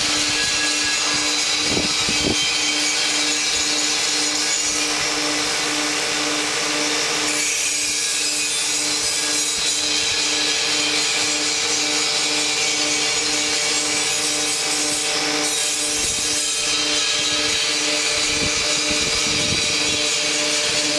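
Motor-driven stophead mechanism running steadily during a test run: a continuous mechanical hiss over a hum that throbs evenly a few times a second.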